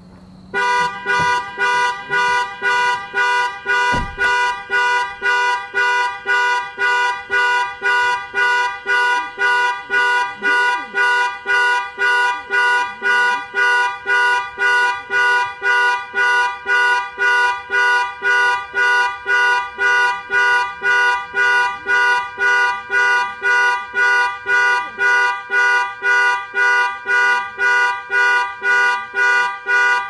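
Car alarm sounding through the vehicle's own horn: a two-tone horn honking in steady, even pulses, about two a second, starting about half a second in.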